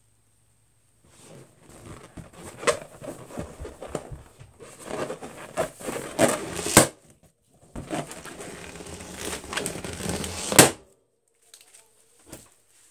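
Latex balloons being squeezed and scratched with fingernails, squeaking and crinkling, each stretch ending in a sharp pop. There are two pops about four seconds apart, the second near the end.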